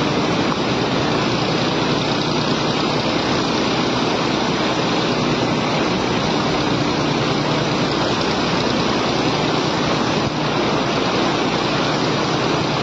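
A steady, loud rushing noise with a low, even engine-like hum beneath it.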